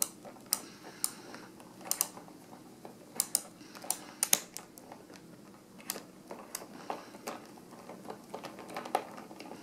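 Hand screwdriver starting a small screw into the arm of an Eames Lounge chair: a string of light, irregular clicks and ticks as the screw is turned by hand.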